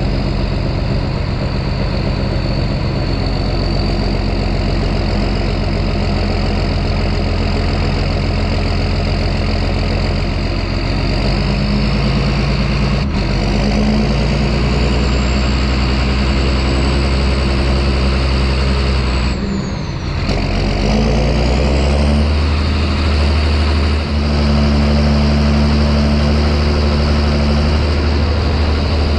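John Deere 6630 tractor's diesel engine running steadily under load while it works up the paddock with a rotary tiller, a high whine slowly rising in pitch over it. About two-thirds of the way in, the engine note dips briefly, then picks up again at a slightly different pitch.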